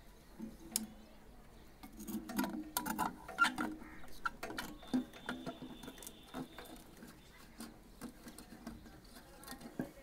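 Hands handling and pulling off the plastic end cover of an electric water heater (geyser): scattered plastic clicks, taps and scraping, busiest a couple of seconds in.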